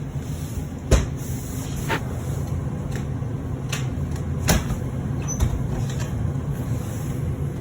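Steady low rumble with a few sharp knocks, the loudest about a second in and another a few seconds later.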